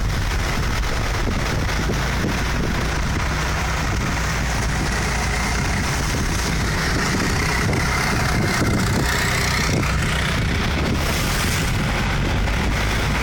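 A boat's engine running steadily under way, with wind buffeting the microphone.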